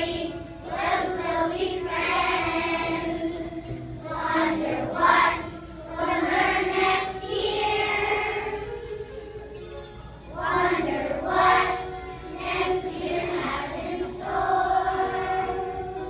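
A choir of kindergarten-age children singing together, in phrases with brief pauses between them.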